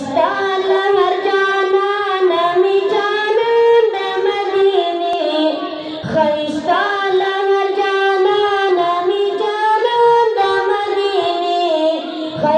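A boy singing a Pashto naat into a microphone, in long held notes that bend slowly up and down in pitch.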